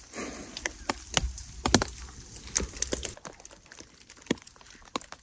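Rain dripping onto a tarp overhead: irregular sharp taps of single drops, several a second. A low rumble of the camera being handled runs under them for the first three seconds.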